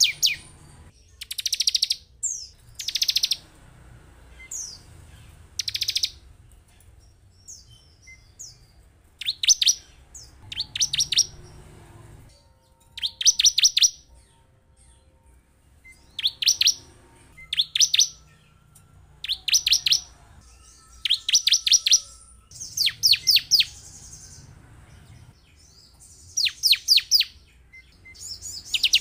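Bar-winged prinia (ciblek) calling in short, rapid bursts of sharp high notes, one phrase every second or two. The recording is used as a lure to rouse other ciblek into singing.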